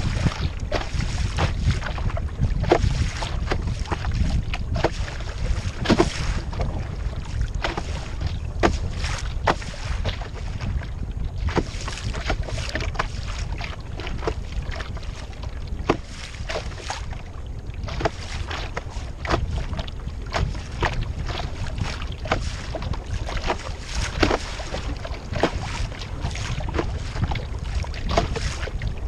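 Wind buffeting the microphone while small waves slap and splash irregularly against the foam hull of a small Sea Snark sailboat under sail in choppy water.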